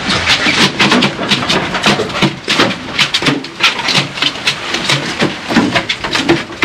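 Freshly gaffed tuna thrashing on the boat deck, rapid irregular slaps and knocks as it beats against the deck.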